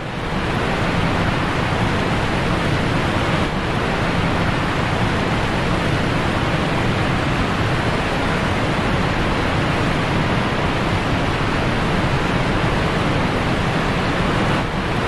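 Steady, even rushing noise with no distinct events and no change in level.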